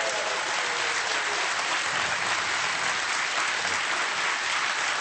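Studio audience applauding, a steady dense clapping that holds at an even level.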